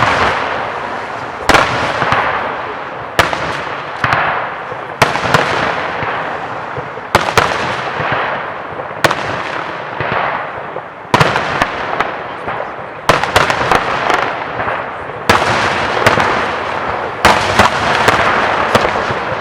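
Fireworks display: aerial shells bursting with sharp bangs every second or two, some in quick runs of several, each followed by a long fading crackle and echo.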